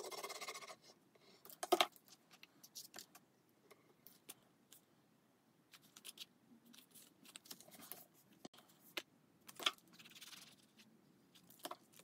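Faint handling of cardstock on a craft mat: a short scrape in the first second, then scattered light taps, clicks and rustles as paper card layers are picked up, slid and pressed into place.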